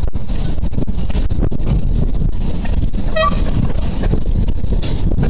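Series 813/814 diesel multiple unit rolling into a station: a steady low rumble of engine and wheels, heavily buffeted by wind on the microphone. A short pitched tone sounds once about three seconds in.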